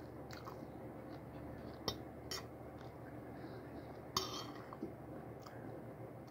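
A metal fork clinking lightly against a plate about four times as rice is scooped up.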